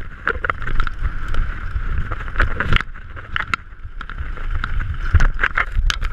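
Handling noise of a body-worn action camera: rustling, scraping and small knocks as the fallen rider shifts on the dirt and the camera rubs against his jersey, over a low wind rumble on the microphone.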